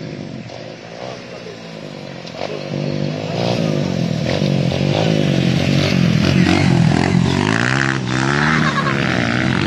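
Several enduro motorcycles riding past one after another, their engines revving, each rising and falling in pitch as it goes by; the sound grows louder about two and a half seconds in as more bikes arrive.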